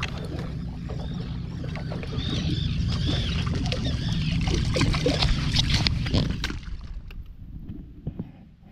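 A boat engine runs steadily with a low hum, and birds give repeated high chirping calls over it. There are scattered clicks and knocks. The engine noise falls away about six and a half seconds in.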